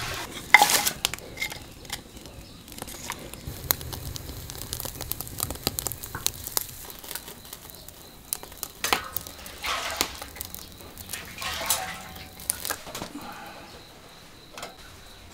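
Wood fire crackling in the firebox of a brick cooking stove, with scattered sharp pops and clicks.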